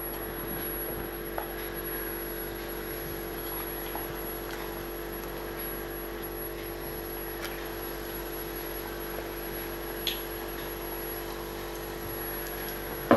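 Appalam bajji frying in hot groundnut oil in a clay pot, a steady sizzle over a steady low hum, with a faint tick or two.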